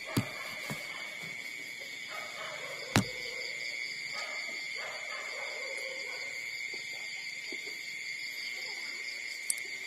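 Newborn puppies giving soft, wavering whimpers while nursing, over a steady high-pitched hum, with a few sharp clicks: one near the start, one about three seconds in, one near the end.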